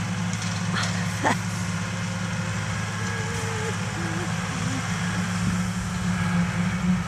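An engine running at a steady speed, heard as an even low hum, with one sharp click about a second in.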